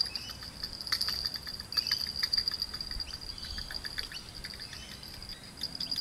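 Insects shrilling steadily in a high tone, with runs of quick clicking from a fishing reel being wound in on a hooked whiting.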